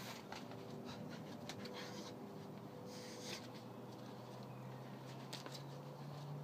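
Faint scuffs and scrapes of a climber's shoes and hands moving on the rock face, a few short brushing sounds among them, over a faint steady low hum.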